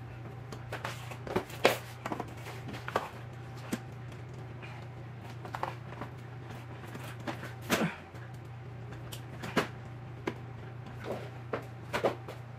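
Frame tubes and plastic joints of a Fisher-Price baby swing being handled and fitted together: scattered clicks and knocks, the loudest about two seconds in and near eight seconds, over a steady low hum.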